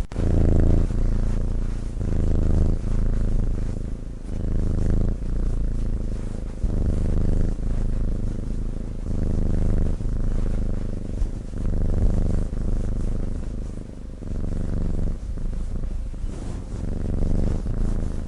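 Sleeping cat snoring: a low rumble that swells and fades with each breath, roughly one every one and a half to two seconds.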